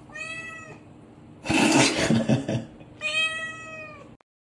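Siamese cat meowing twice, two long drawn-out meows about three seconds apart, with a louder noisy sound lasting about a second between them.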